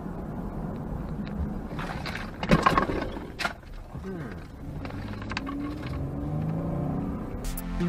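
Road and engine noise inside a moving car, picked up by a dashcam microphone, with a brief louder burst about two and a half seconds in.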